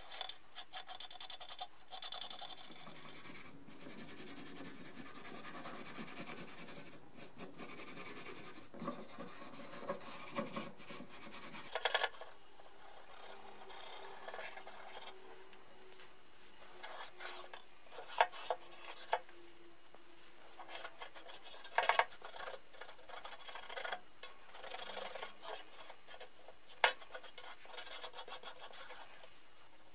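Scraping and rubbing on a wooden hand-saw handle as old crusted finish is cleaned off. Dense scratching runs for the first dozen seconds, then lighter, intermittent rubbing follows with a few sharp clicks.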